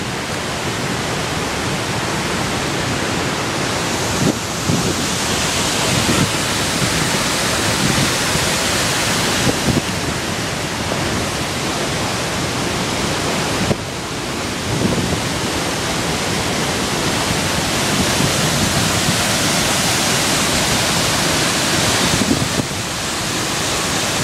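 Wahclella Falls on Tanner Creek: a loud, steady rush of falling and tumbling water.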